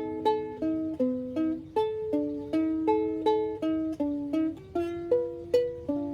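Solo ukulele playing an instrumental passage between sung verses: plucked chords about three a second, each ringing and fading.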